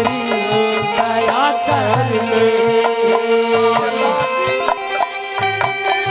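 Haryanvi ragni folk music: a harmonium melody of held, bending notes over dholak drumming with deep bass strokes.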